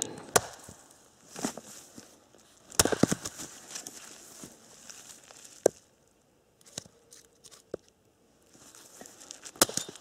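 Axe splitting firewood: several sharp chopping blows at uneven intervals, with quieter handling of the wood between them.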